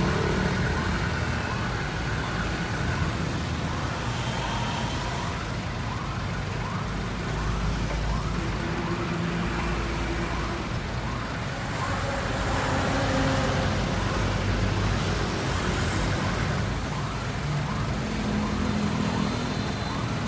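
Heli 3-ton diesel forklift engine running, its note rising and falling as the hydraulics work the rotating bale clamp, with road traffic going by.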